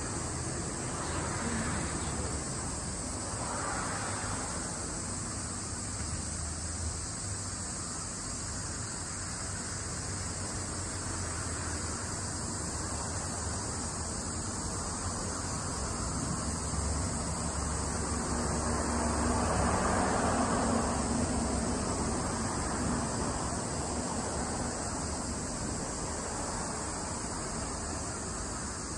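Steady outdoor rushing noise with a low rumble, like wind or distant traffic, swelling briefly about three seconds in and again around twenty seconds in.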